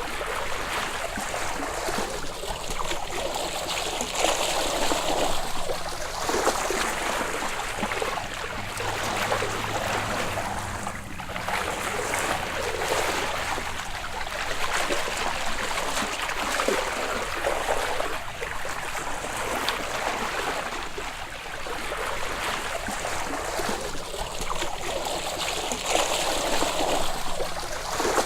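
Ocean water at the surface, heard above water, lapping and sloshing steadily. It swells and eases every few seconds.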